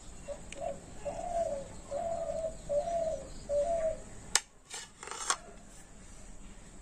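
A dove cooing: a run of about six short, low notes over the first few seconds. A little after the middle come two sharp clicks of a knife against a plastic plate.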